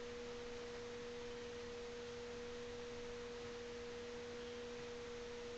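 Faint steady electronic tone: one constant pitch with a weaker lower tone beneath it, over light hiss.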